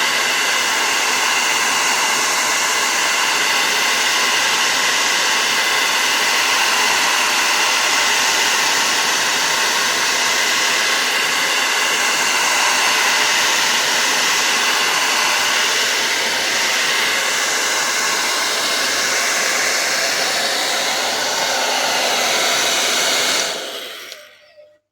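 Remington hair dryer blowing steadily with a faint motor whine, drying fresh paint on car bodywork. It is switched off near the end and runs down to silence.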